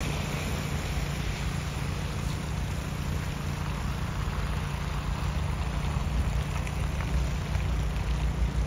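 Steady city street traffic noise: a low rumble with a hiss of tyres on the slushy road.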